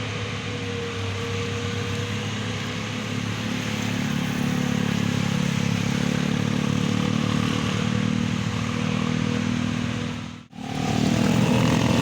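Large road-vehicle engine, a bus's, running steadily close by and getting louder about four seconds in. The sound cuts out for a moment near the end, then resumes.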